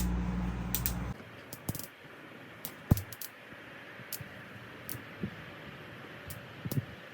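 A steady low hum that cuts off about a second in, followed by scattered light clicks and taps.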